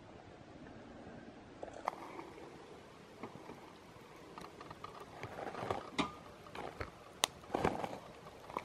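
Footsteps crunching over dry dirt and forest litter, with camera handling, as someone walks with the camera: irregular crunches and clicks that start about two seconds in and get louder and more frequent in the second half.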